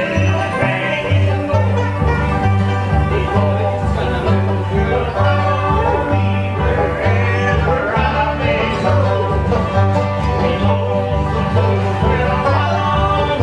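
Bluegrass music played on acoustic string instruments: an upright bass steps back and forth between two low notes about twice a second under fiddle and plucked guitar-type strings.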